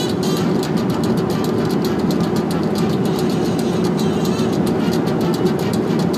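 Music with a fast, steady beat over the steady road noise of a car driving at motorway speed.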